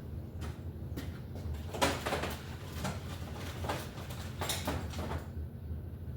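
Clicks and scraping from hands working on a bicycle's cantilever brake, in several short clusters about two to five seconds in, over a low steady hum.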